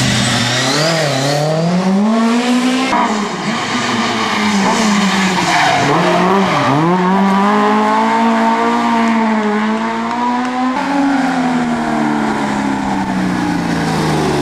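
Historic rally cars driving hard through bends one after another, each engine note dropping and climbing as they brake, shift and accelerate. Tires squeal briefly near the start.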